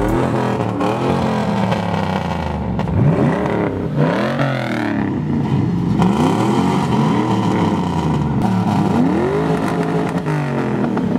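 Hot rod engines being revved again and again, each throttle blip sweeping the pitch up and letting it fall back, several engines overlapping.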